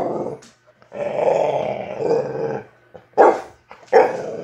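A puppy growling for nearly two seconds, then barking sharply twice.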